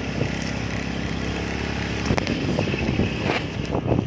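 An engine running steadily, then a jumble of clicks and knocks in the second half.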